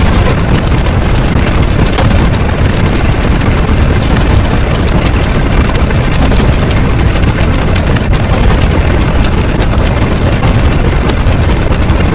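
Loud, steady rumbling noise with a crackling edge, like a heavy engine or blast sound effect.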